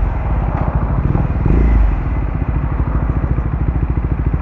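Triumph Speed 400's single-cylinder engine running through an aftermarket slip-on exhaust, a steady, bassy beat of firing pulses, swelling briefly louder about one and a half seconds in.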